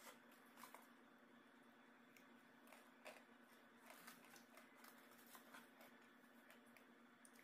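Near silence: faint scattered clicks and rustles of hands picking at fried chicken and a paper box, over a low steady hum.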